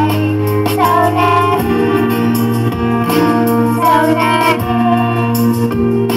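Young girls singing a Thai pop song through microphones over a recorded backing track played from small PA speakers.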